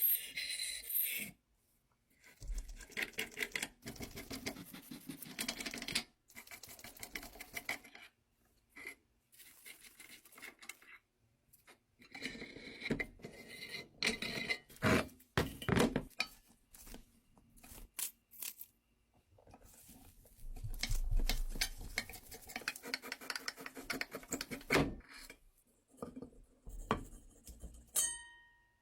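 Small metal parts of an old, rusty roller cookie machine clinking, rattling and scraping as they are handled. The sound comes in short stretches that break off abruptly.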